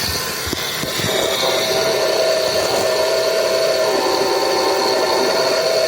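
Chevrolet Celta engine idling with the accessory-belt tensioner pulley bearing squealing, a steady rubbing whine: the tensioner bearing is worn and is the source of the belt noise.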